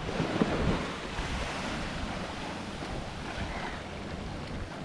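Small waves washing onto a sandy beach, with wind buffeting the microphone.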